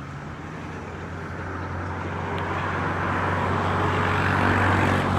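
A motor vehicle passing on the road: engine hum and tyre noise growing steadily louder, loudest near the end.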